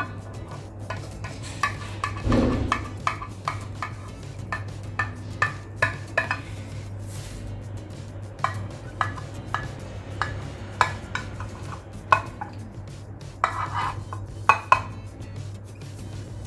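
Kitchen knife cutting through a set gelatin dessert, with many short clicks and taps as the blade knocks against the bottom and sides of the dish. A steady low hum runs underneath.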